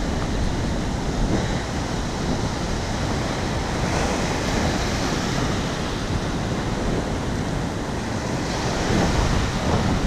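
Ocean surf breaking and washing up a sandy beach in a steady rush, with wind buffeting the microphone.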